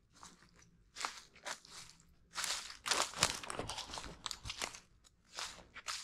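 Footsteps crunching through dry leaf litter on the forest floor, in an uneven series of steps.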